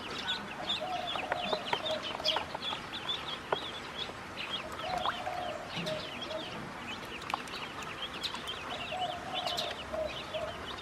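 A group of ducklings peeping continuously in quick, high chirps, with a few longer, lower calls breaking in now and then.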